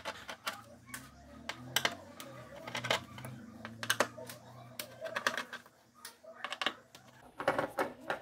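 Screwdriver backing small screws out of the cover over an LED TV's backlight bars: irregular light clicks and ticks of the bit and the screws, about one or two a second.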